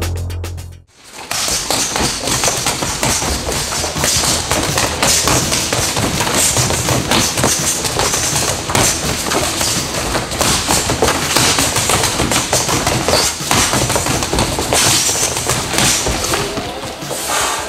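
Boxing-gloved punches landing one after another on a freestanding man-shaped rubber punching dummy: a fast, continuous run of slapping thuds that starts about a second in.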